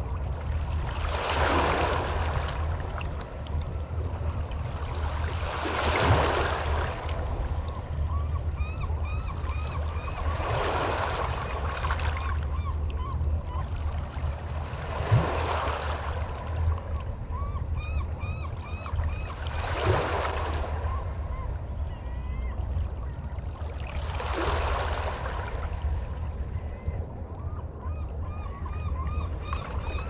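Small waves washing onto the Puget Sound shore, one swell about every four to five seconds, over a steady low rumble. From about eight seconds in, water birds call repeatedly in short pitched notes.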